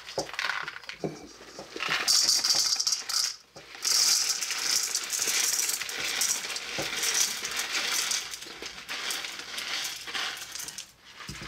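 Coarse rock salt (ice cream salt) poured from its box, a continuous grainy rattle of granules piling up, with a short break about three and a half seconds in.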